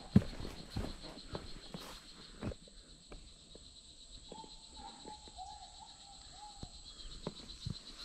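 Footsteps on a grassy dirt path, the first the loudest, over a steady high-pitched drone of rainforest insects. About halfway through, an animal gives a string of short low calls.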